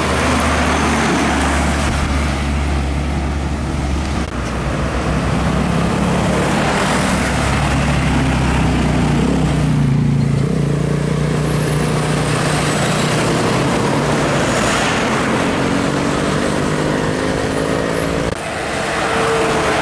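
Heavy diesel trucks passing on a highway: steady engine drone with tyre and road noise. Engine notes climb in pitch shortly before the sound changes abruptly near the end.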